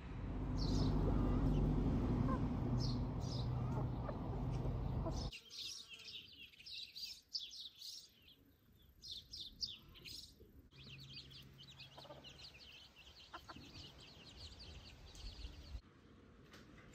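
A low steady rumble for the first five seconds, with birds chirping over it. Then birdsong alone. From about eleven seconds a domestic hen clucks low while her chicks peep in a dense, continuous run.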